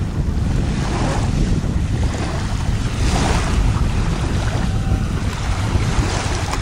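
Wind buffeting the microphone over the wash of choppy sea water, with surges of splashing a few times.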